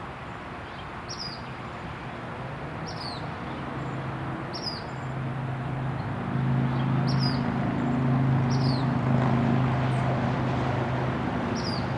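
A small songbird giving short, sharp, high chip notes that drop in pitch, one every second or two. Behind it a low engine hum from a passing vehicle swells from about a third of the way in and eases off near the end.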